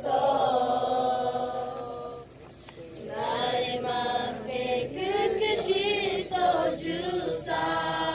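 A group of voices singing a slow song, with long held notes and short breaks between phrases.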